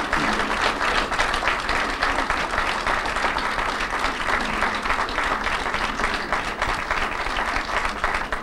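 A large audience applauding steadily, many hands clapping together.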